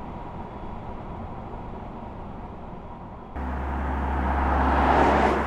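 Mercedes-AMG EQE 53 electric sedan driving: a quiet, even road noise at first. About three seconds in it jumps louder, with a steady low hum under a rushing tyre and wind noise that swells to a peak near the end.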